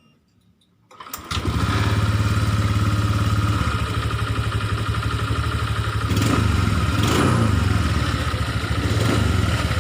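A Honda Vario 125 scooter engine starts about a second in and settles into a steady idle. It runs smoothly, without the rattling that the loose radiator fan bolts had caused.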